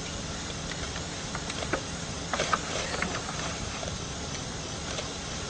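Steady hiss over a low hum, with a scatter of brief clicks and short chirps through the middle seconds.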